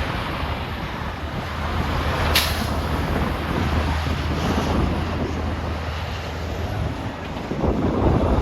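High wind buffeting the microphone, with interstate traffic running underneath and a low steady drone of a passing vehicle in the middle. A short sharp crack about two seconds in.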